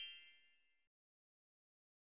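The ringing tail of a bright, bell-like chime fading away within the first half second, then silence.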